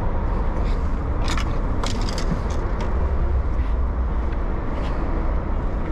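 Boat engine running steadily with a low rumble, with a few short clicks and knocks from fishing gear being handled.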